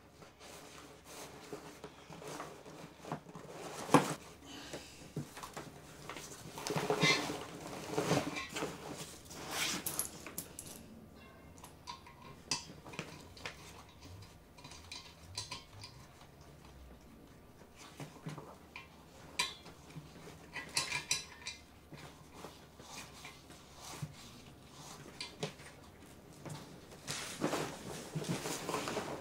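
Handling of a life raft's CO2 inflation cylinder and its webbing straps and buckles: scattered metallic clinks and knocks with rustling fabric, the sharpest a single click about four seconds in.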